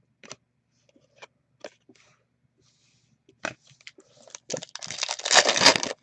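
Trading cards and their packaging being handled: scattered light clicks and rustles, then about four and a half seconds in a loud, dense crinkling of packaging.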